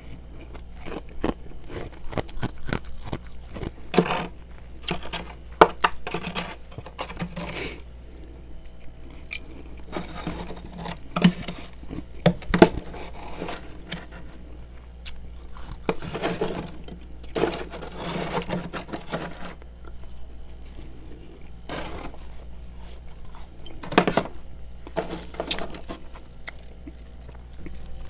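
Frost being scraped off the inside of a freezer: irregular scrapes with sharp clinks and knocks, some louder strikes about four, five and a half, twelve and twenty-four seconds in.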